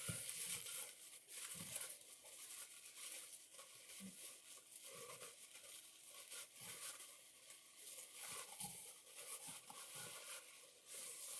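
Faint rustling and crinkling of packaging as another candle is unwrapped, with small irregular ticks and scrapes.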